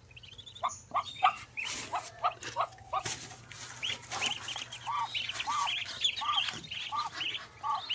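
Poultry calling: scattered short chirps, then a steady run of short, arched calls, about two a second.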